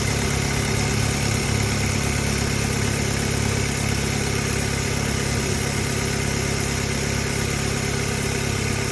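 2001 Saturn L-Series car engine idling steadily during an overheating test, with its electric radiator fan not yet coming on.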